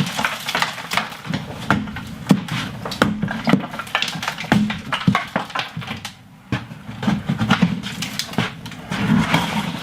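Irregular knocks and clatter as a fitting wired onto metal is kicked and knocked loose.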